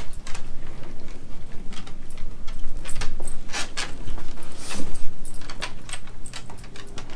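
Dogs nosing and gnawing rubber Kong toys stuffed with frozen peanut butter on a boat deck: a busy run of irregular clicks and knocks as the toys knock against the deck, with jingling of collar tags.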